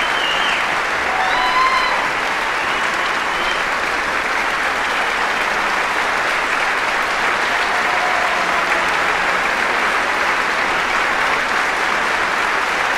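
Large concert-hall audience applauding, a dense, steady clapping that holds at an even level throughout.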